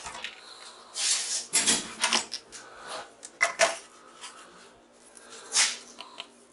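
Clattering and knocking of objects being handled and set down on a workbench, in several short bursts with pauses between, over a faint steady hum.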